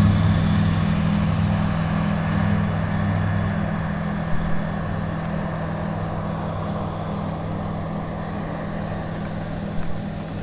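Small propeller plane's engine droning steadily at climb power, slowly fading as the plane climbs away after takeoff. Two brief clicks come about four and a half seconds in and near the end.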